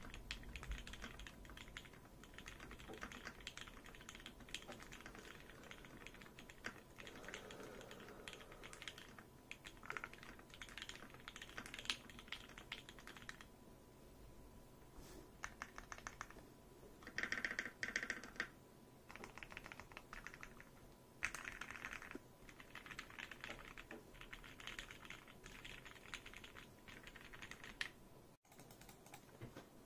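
Typing on a TGR x SINGA Unikorn mechanical keyboard with lubed linear switches: fast runs of keystrokes in bursts, broken by short pauses, with a few louder clusters of strokes.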